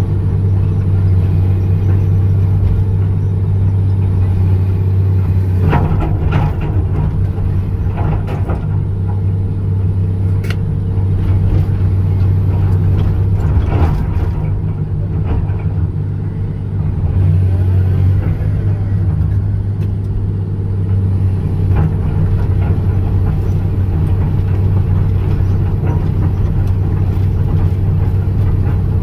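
John Deere 200LC (Hitachi EX200) excavator's diesel engine running steadily under working load, heard from inside the cab as a loud, low drone. Over the first half come a few sharp knocks and clunks as the boom and bucket are worked.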